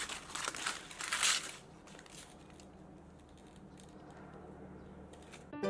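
Crinkling, tearing handling noises in a run of quick bursts over the first second and a half, then faint scattered clicks. Plucked-string music starts right at the end.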